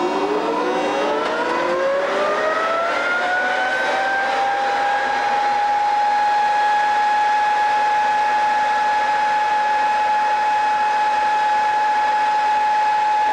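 Le Shuttle electric locomotive machinery whining: the pitch climbs over the first four seconds or so, then holds a steady high whine over a running hiss.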